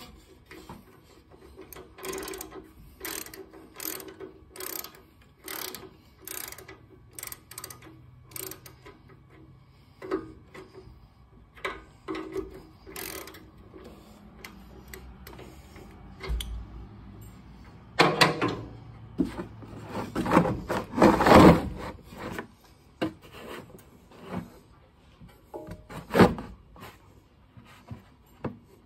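A ratchet and socket loosening the oil tank drain plug on a Harley-Davidson Fatboy, with a run of regular clicks about one every second. It is followed by knocking and scraping as a plastic oil drain container is handled into place under the bike, loudest about two-thirds of the way through.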